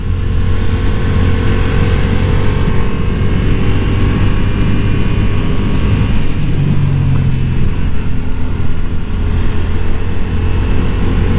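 Motorcycle engine running steadily at cruising speed through a series of bends, with wind rushing over the helmet-mounted microphone. The engine note changes briefly about seven seconds in.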